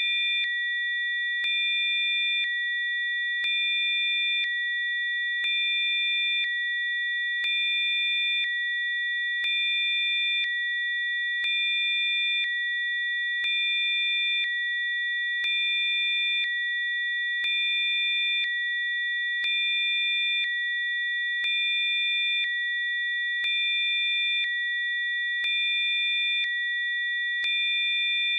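Steady synthetic electronic tones: a chord of several high pitches that holds unbroken, its level and make-up stepping slightly every second.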